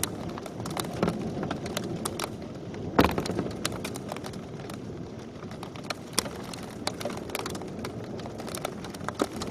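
Thunderstorm hail and rain striking hard surfaces: a steady rush of rain with irregular sharp clicks and knocks from hailstones, one louder knock about three seconds in.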